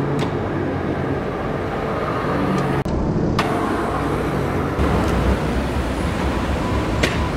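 Steady city street traffic noise, with a few sharp clacks of a freestyle scooter landing tricks on the pavement.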